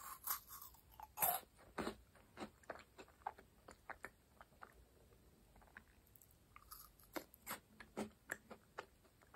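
Close-miked crunching of a crisp meringue cookie being bitten and chewed: a loud crunch about a second in, then smaller crunches that thin out, and a second run of crunches near the end.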